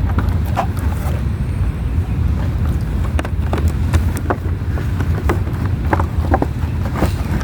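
Light clicks and crackles of a doll box's cardboard and plastic being handled, scattered irregularly, over a steady low rumble.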